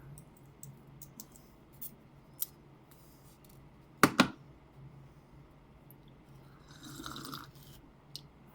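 Handling sounds as a tanto knife is taken apart: scattered light clicks, two sharp knocks in quick succession about four seconds in, and a brief scrape near the end.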